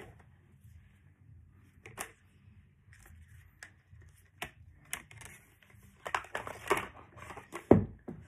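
Plastic toy track pieces clicking and clattering as they are handled and fitted together, a few separate clicks at first, then a quicker run of clatter, with a louder thump near the end.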